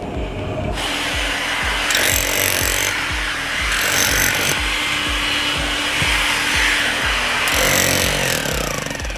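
A power saw cutting through wood, starting about a second in and running steadily until near the end, over background music with a steady beat.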